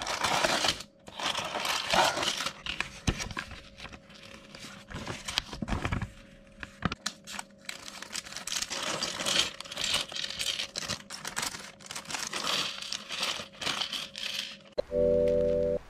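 Plastic parts bags crinkling as they are handled and snipped open with scissors, after a cardboard kit box is opened. Near the end, small plastic building bricks are tipped out onto a wooden table with a run of clicks, and music starts just before the end.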